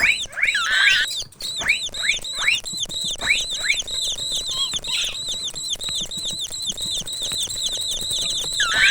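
Mouse squeaking sound effect: a rapid run of high-pitched squeaks and chirps, many falling in pitch, several a second.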